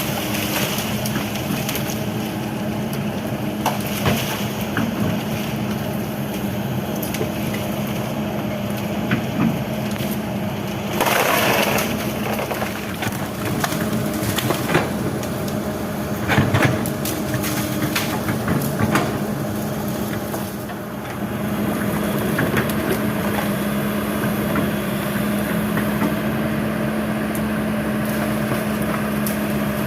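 Kobelco SK200 hydraulic excavator's diesel engine running steadily while the machine crushes and breaks brush and timber, with scattered cracks and snaps of wood. A louder burst of breaking comes about eleven seconds in.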